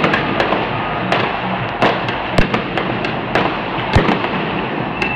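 Fireworks going off across a city: sharp bangs about every half second, the loudest about two and a half and four seconds in, over a steady wash of crackling and popping from many more.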